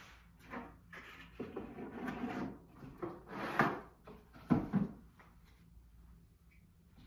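A small box and a book being moved and set down on a bookshelf: a few knocks, and scraping as they slide into place. The sharpest knocks come about four and a half seconds in, and the last two seconds are quieter.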